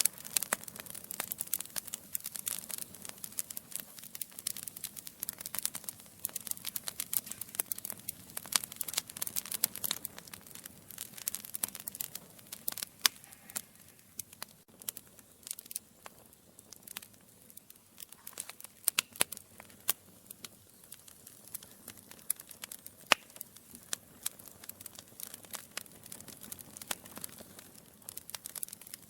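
Wood logs burning in a fireplace: a steady stream of small crackles and pops over a soft hiss, with an occasional louder snap.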